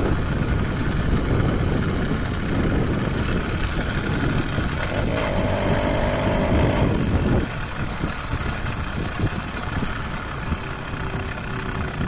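80cc two-stroke motorized-bicycle engine running under way, mixed with wind noise on the microphone. A steady humming tone rises above it from about five to seven seconds in, and the overall sound drops a little just after.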